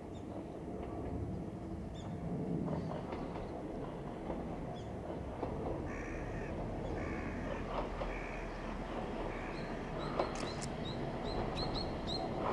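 A crow cawing repeatedly, about one call a second, from about halfway in. Under it runs the low rumble of an ex-Tokyu 5000 series electric railcar approaching in the distance. A few short high chirps come near the end.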